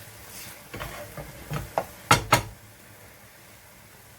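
A spoon stirring and knocking against a cooking pot of gravy: a handful of sharp knocks, the two loudest close together about two seconds in.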